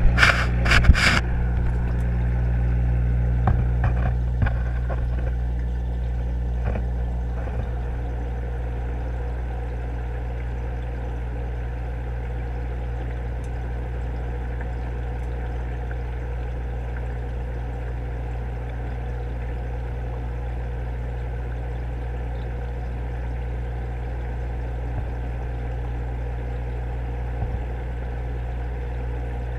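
Steady machinery hum with several low steady tones, heard underwater through the camera housing in a fish tank. A few sharp knocks come in the first second, and fainter ones around four and seven seconds in.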